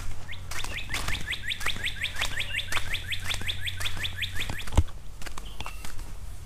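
A songbird singing one long, even trill of about twenty quick down-slurred high notes, lasting about four seconds, over footsteps on a dirt trail.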